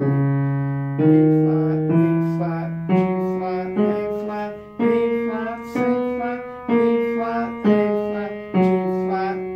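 Yamaha upright piano playing a C-flat major scale slowly, about one key a second. Each note rings on until the next; the scale climbs and then comes back down.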